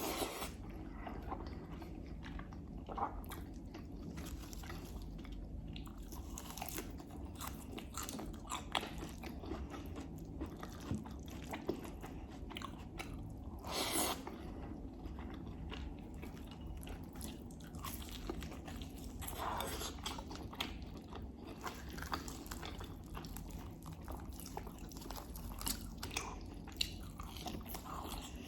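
Close-miked chewing and biting of ghormeh sabzi stew with dill and broad-bean rice and lamb, full of short wet mouth clicks and a few louder crunchy bites.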